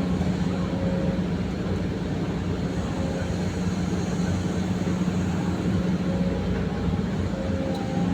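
Excavator's diesel engine running at a steady pitch.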